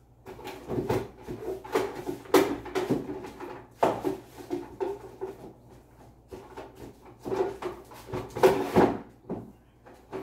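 Things being moved around and handled on top of a wooden wardrobe: irregular knocks, bumps and rustling, with louder knocks about two and a half, four and eight and a half seconds in.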